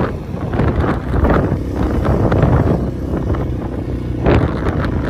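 Wind buffeting the microphone on a moving quad bike, over a steady rumble of vehicle and road noise. A sharp knock comes about four seconds in.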